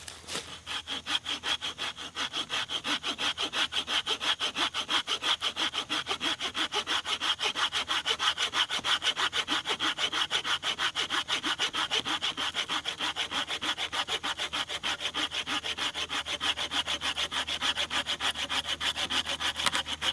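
Hand pruning saw cutting a wooden pole to length, with rapid, even back-and-forth strokes that start about half a second in and keep going.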